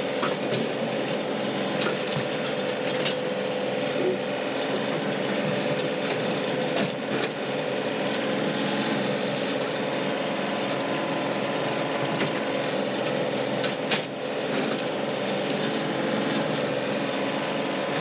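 John Deere 2038R tractor's three-cylinder diesel running steady near full throttle, about 2,700 RPM, driving the 270B backhoe's hydraulics, with a few short knocks and scrapes as the bucket digs at a rock.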